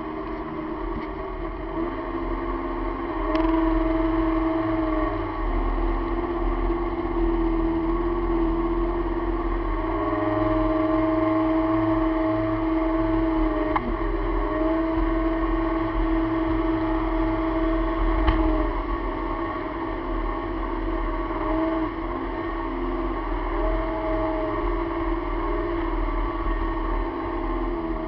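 1997 Sea-Doo GTX personal watercraft's two-stroke engine running at speed, its pitch stepping up and down several times as the throttle is worked, over a steady rush of noise.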